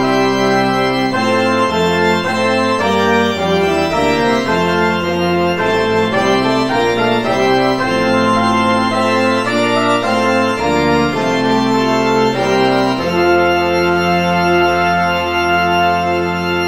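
Organ playing a hymn tune in sustained chords, coming to rest on a long held final chord for the last few seconds.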